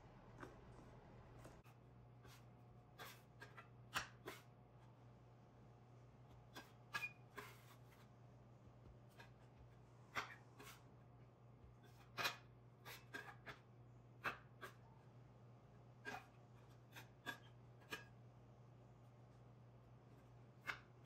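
Metal bench scraper knocking and scraping on a granite countertop while shortcake dough is cut, stacked and patted by hand: scattered sharp clicks and taps, about fifteen in all, over a faint low hum.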